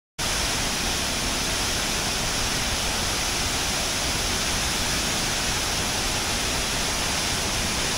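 Steady rushing of Wachirathan Waterfall, a tall waterfall in heavy flow, cutting in suddenly right at the start.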